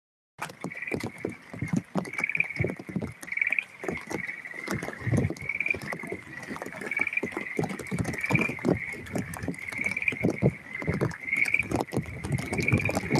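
Rain pattering in many irregular taps, with a steady high chirping chorus behind it that swells into a louder chirp about once a second.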